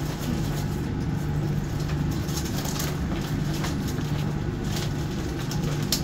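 Steady low hum of the ship's machinery, with intermittent crinkling rustles of an aluminized fire-proximity suit as its front is fastened, and a sharp click near the end.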